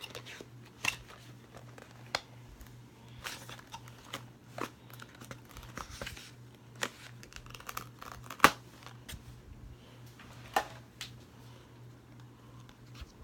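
Plastic shrink-wrap being torn and crinkled off a Blu-ray box set, with scattered sharp crackles and snaps; the loudest snap comes a little past the middle.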